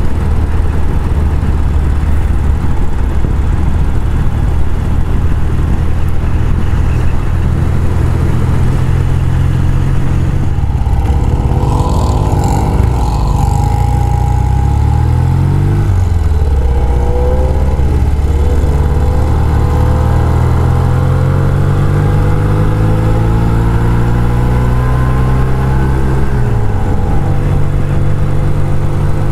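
Classic British motorcycle engine running under way, heard from the saddle. About eleven seconds in the engine note falls and changes as the bike slows, then rises again through the gears and settles into a steady cruise.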